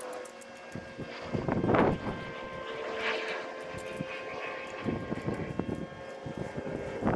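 A shovel digging into soil, with a few separate scraping strokes, over a steady engine-like drone.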